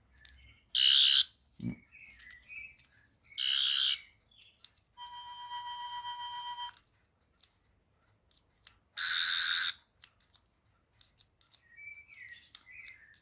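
Toy Doctor Who sonic screwdrivers switched on one after another: four short bursts of electronic sound effect. Three are a rough, warbling buzz. The fourth, in the middle, is a steady electronic tone lasting about a second and a half.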